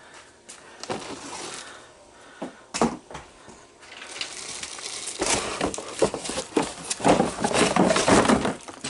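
Packaging being handled and pulled apart while an electric pressure washer is unpacked: dense crinkling and crackling with sharp clicks and knocks, growing louder and busier about halfway through.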